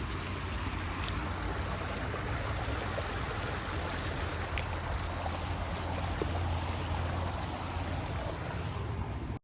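Steady rush of flowing water in a small stream, with a low rumble underneath; it cuts off suddenly at the end.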